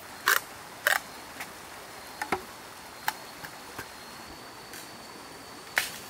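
A string of irregular sharp knocks and clicks, two loud ones in the first second, several softer ones through the middle and another loud one near the end, over a faint steady high-pitched insect drone.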